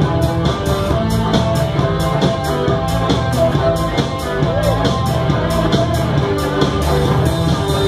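Live band playing an up-tempo song with banjo and a drum kit keeping a steady beat.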